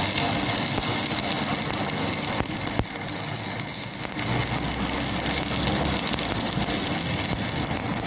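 Stick (manual metal arc) welding: the electrode's arc crackling steadily as a bead is laid on steel, with a low hum underneath.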